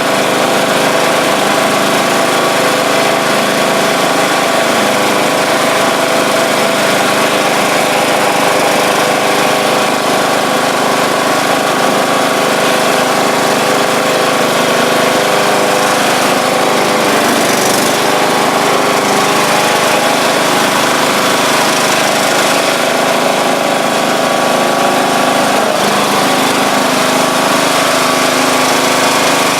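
John Deere LA125 lawn tractor's replacement single-cylinder Briggs & Stratton Intek engine running steadily as the tractor drives, now running right after its sheared flywheel key was fixed. The pitch dips and comes back up briefly about two-thirds of the way through, and the tone shifts slightly near the end.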